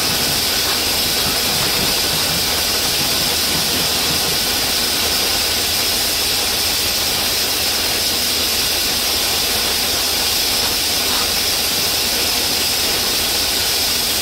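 Loud, steady hiss of compressed air escaping from an air leak on a standing New England Central Railroad diesel locomotive, with its engine running low underneath.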